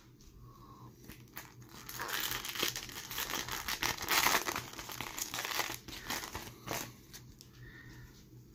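Shiny foil wrapper of a Tim Hortons Upper Deck hockey card pack being torn open and crinkled by hand. The crackling rustle builds about two seconds in, is loudest near the middle, and dies away about seven seconds in.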